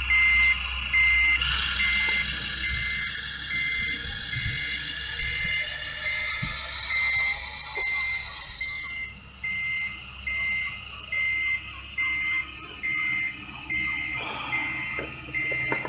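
Reversing beeper of a scale RC Mercedes-Benz SK 3544 8x8 dump truck's electronic sound module: a steady high beep about one and a half times a second while the truck backs up, over the module's simulated diesel engine running.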